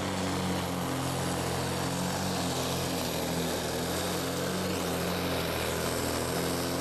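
Volvo pulling truck's diesel engine running flat out under heavy load as it drags the weight sledge, a steady loud drone whose pitch holds nearly level.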